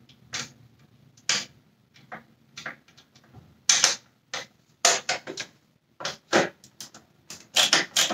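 Irregular clicks and taps of a hand screwdriver and plastic parts while screws are worked out of a Dyson Cinetic Big Ball vacuum cleaner's plastic housing, coming quicker and closer together near the end.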